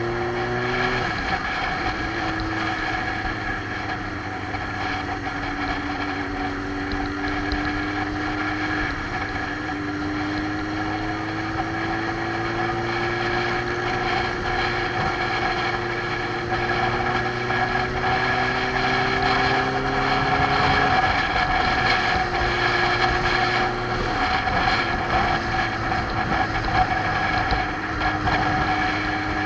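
Motorcycle engine running under way, heard from the bike itself over a steady rush of road and air noise. Its pitch climbs slowly and drops sharply about a second in, then twice more about two-thirds of the way through, as the rider shifts or eases the throttle.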